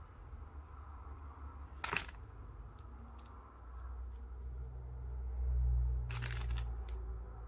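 Multimeter test leads and plastic probes being handled: a sharp click about two seconds in, and a short run of clicks and rustling around six seconds, over a low rumble.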